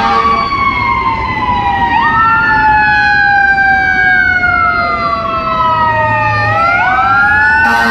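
Fire engine and police sirens wailing together: several overlapping tones slowly fall and then climb again, over traffic noise.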